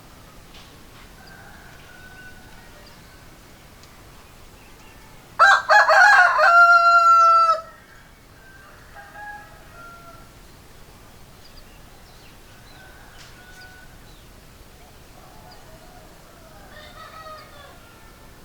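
Rooster crowing once, loud and about two seconds long, starting about five seconds in and ending on a long held note. Fainter, shorter calls come and go before and after it.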